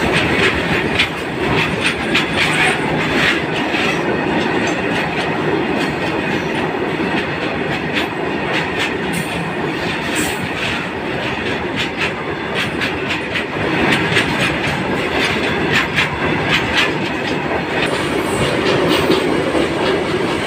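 BOXN open-top freight wagons rolling past close by: a steady rumble of steel wheels on rail, with a constant run of clacks and clatters as the wheels cross the rail joints.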